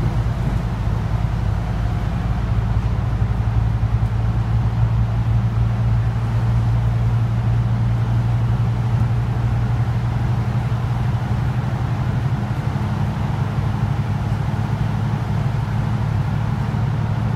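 Scania Citywide LFA articulated city bus under way, heard from inside the passenger cabin: a steady low engine drone with an even road-noise hiss, holding level as the bus cruises.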